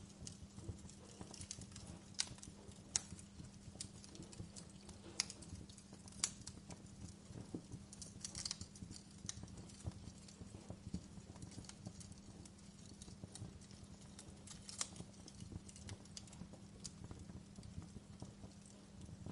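Campfire crackling: burning wood giving off irregular sharp pops and snaps over a low steady hum.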